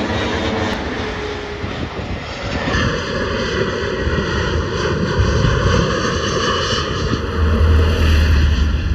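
Jet airliner engines on final approach: a Boeing 777 passing low overhead, then after a sudden cut about three seconds in, an Airbus A319 on approach. A low rumble comes in near the end.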